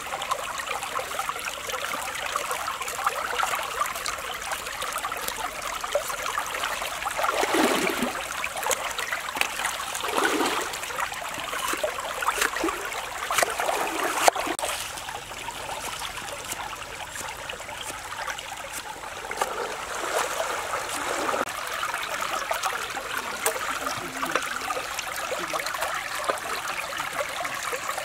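Shallow stream water trickling and gurgling steadily, with a few louder gurgles. Scattered sharp taps of a knife and cleaver on a wooden chopping board come through as red bell pepper is sliced and diced.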